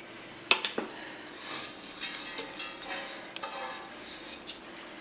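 A ladle stirring rice in a large pot of boiling water, with two sharp knocks against the pot about half a second in, then scraping and a watery hiss as the rice is mixed.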